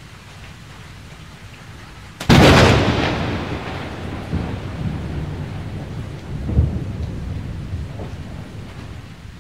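Thunderstorm: steady rain, then a sharp thunderclap about two seconds in that rolls into a low rumble, fading slowly with a few smaller swells.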